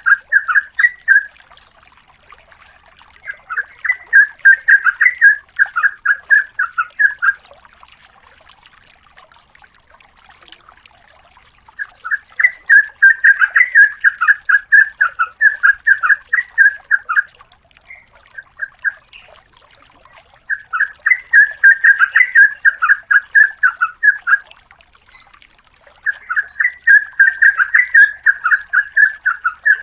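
Yellow-vented bulbul (trucukan) singing long, rapid chattering phrases of quick repeated notes, each lasting several seconds, about five of them with short pauses between.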